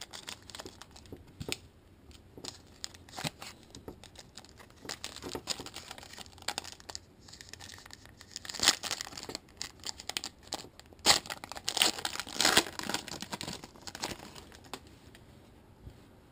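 Plastic wrapper of a trading-card pack being torn open and crinkled by hand, in irregular crackly bursts, the loudest about halfway through and again a few seconds later.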